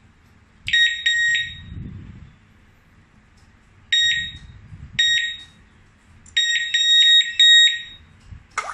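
Alarm control panel beeping: short, high electronic beeps in irregular groups, a few about a second in, single beeps near four and five seconds, and a quick run of beeps around six to seven and a half seconds. A brief sharp click comes near the end.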